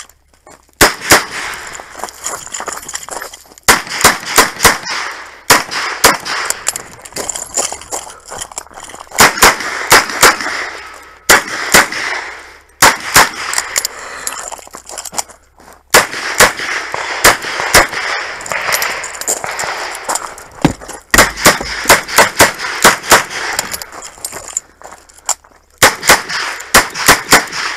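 Revolver shots fired in rapid strings of several at a time. Short gaps between the strings are where the cylinder is reloaded.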